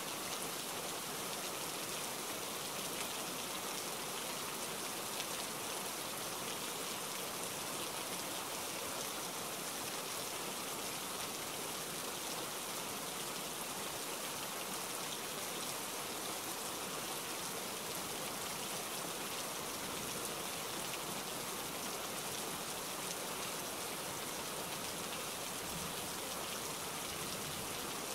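Steady rain: an even, unbroken hiss.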